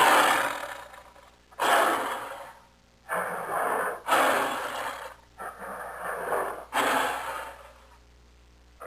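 Jaguar giving a series of hoarse, breathy grunting roars, about six in all, each about a second long and coming every second or so. They stop near the end.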